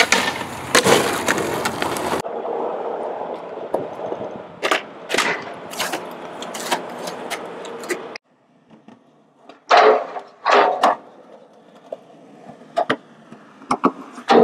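Skateboard wheels rolling on pavement, with repeated sharp wooden clacks of the board striking the ground. The rolling noise drops away suddenly about eight seconds in, leaving separate clacks.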